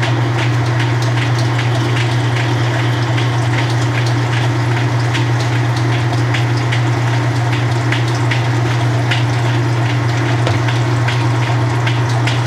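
1993 Kenmore 80 Series top-load washer running a spin cycle dry: a steady motor hum with irregular ticking and crackling over it. The owner puts the ticking down to debris caught in the drain pump.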